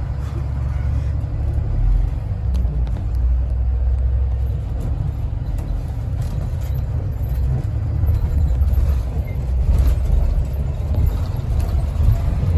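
A long train rolling past: a steady low rumble with a few faint clicks.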